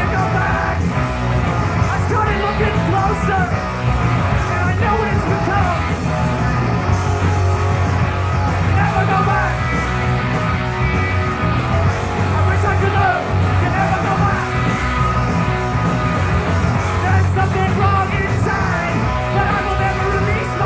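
Melodic hardcore punk band playing live: electric guitar, bass and drums, with a singer shouting and singing the vocal over them.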